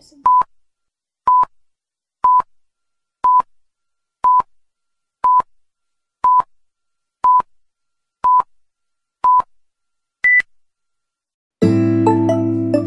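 Film-leader countdown beeps: ten short beeps at one pitch, one a second, then a single higher beep. Music starts near the end.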